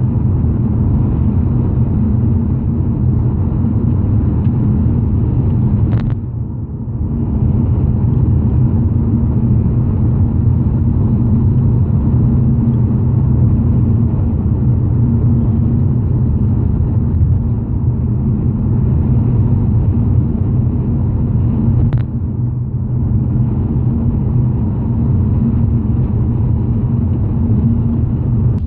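Road and engine noise heard from inside a BMW's cabin at motorway speed: a steady low rumble of tyres and engine. Twice, a short click is followed by a brief dip in the rumble.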